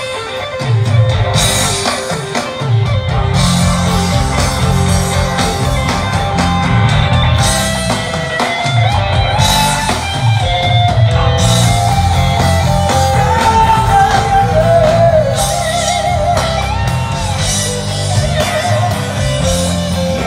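Live rock band playing through a PA: electric guitars and a drum kit, with melodic lines that bend in pitch.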